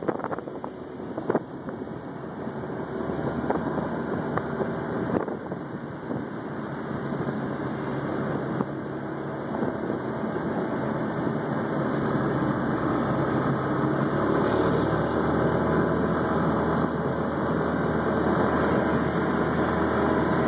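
Small engine of a three-wheeled two-seat tour scooter car running on the move, with wind and road noise, growing steadily louder. A few knocks sound in the first couple of seconds.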